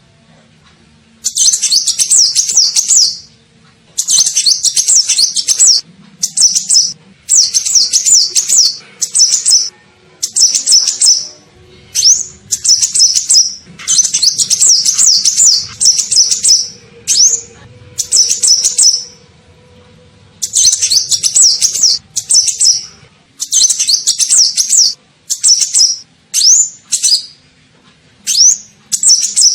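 Van Hasselt's sunbird (kolibri ninja) singing a high, rapid twittering song in bursts of half a second to three seconds with short pauses between, and a few single rising notes; this is the kind of song recording played as a lure call to attract the bird.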